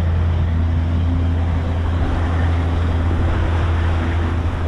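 Motorboat engine running at a steady, even pitch, with a low drone and a few higher tones over the rush of water and wind.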